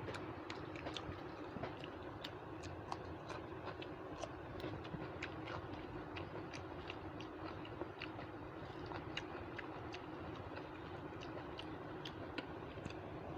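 Eating by hand: chewing and many small irregular mouth and finger clicks as rice and chicken curry are mixed on a metal plate and eaten, over a steady low hum.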